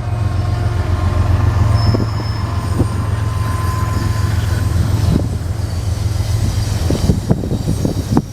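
BNSF diesel locomotives passing at the head of an intermodal train, their engines making a steady low drone, with a thin wheel squeal and sharp wheel clicks that come more often from about five seconds in as the train crosses over to another track.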